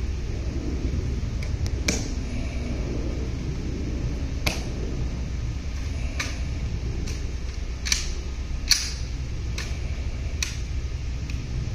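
Tomb guards' drill movements: about nine sharp clicks and taps of heel taps and rifle handling. The first comes near two seconds in and the rest about a second apart from about four seconds in. A steady low rumble runs underneath.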